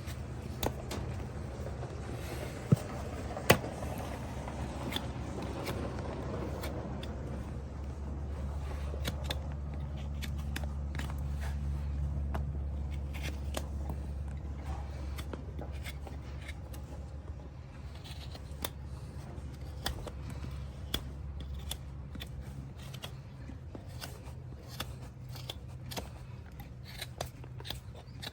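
Farrier's hand tools working a horse hoof: irregular sharp clicks and scraping as the hoof is cut and pared, over a steady low hum.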